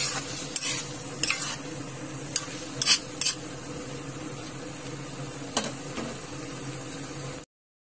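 Squid and vegetables sizzling in a metal pan while being stir-fried, the utensil scraping and clinking against the pan several times. The sound cuts off suddenly near the end.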